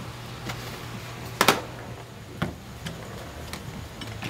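A few sharp, irregular metal clicks and taps of a hand tool working on an aluminium Subaru FB20 engine block, the loudest a double click about one and a half seconds in, over a steady low hum.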